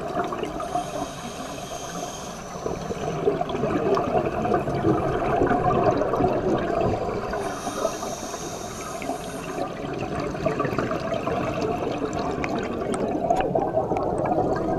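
Scuba divers' exhaled air bubbles rushing and gurgling past a GoPro in its underwater housing. Twice a higher hiss joins in for about two seconds, about a second in and again around eight seconds.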